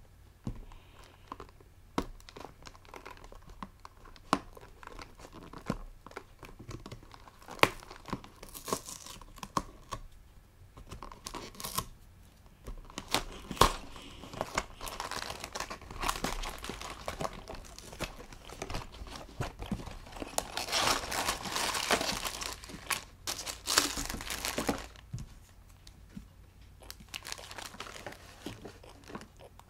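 Scattered clicks and taps of hands handling a cardboard LEGO set box, then, from about halfway in, the box's end flap tearing open and clear plastic parts bags crinkling as they are pulled out.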